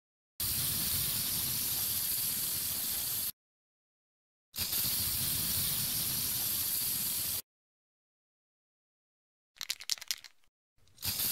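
Aerosol spray paint can spraying in two steady hisses of about three seconds each, with silence between them. About ten seconds in comes a short irregular rattle of a shaken spray can's mixing ball, then another hiss begins near the end.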